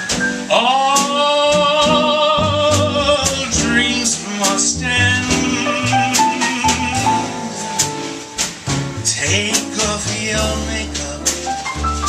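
A male vocalist holds a long note with vibrato, from about half a second in to about three and a half seconds, then sings on over piano and a drum kit with steady cymbal strokes.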